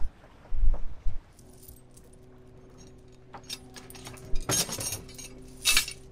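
Steel anchor chain rattling and clinking as it is hauled aboard a small boat by hand, in scattered jangles with two loud bursts about four and a half and nearly six seconds in. A few low thuds come near the start, and a steady low hum runs under the chain.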